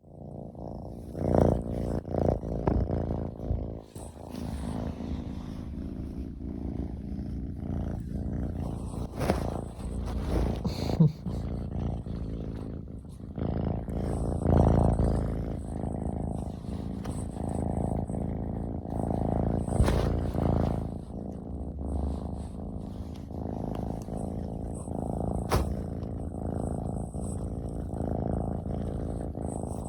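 Ragdoll kitten purring steadily at close range, a continuous low, pulsing purr of a contented, affectionate cat. A few brief rustles or bumps sound over it.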